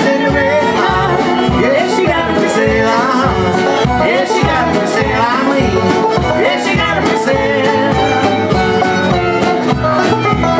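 Live bluegrass band playing fiddle, banjo and acoustic guitars with a steady beat.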